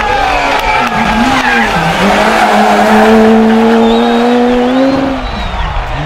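Peugeot 207 S2000 rally car's two-litre naturally aspirated four-cylinder engine at full stage pace: the note dips about a second in as the car comes off the throttle into a corner, then climbs slowly under power for about three seconds, loudest as it passes, and drops with a gear change near the end.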